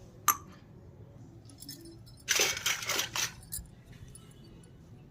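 Miniature toy kitchen pieces being handled: a sharp click just after the start, then about a second of clinking and clattering around two seconds in, and a last light click.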